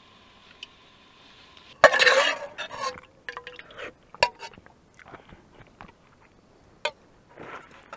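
Sudden loud clatter of a camera being grabbed and handled about two seconds in, then scattered knocks and clinks as it is carried.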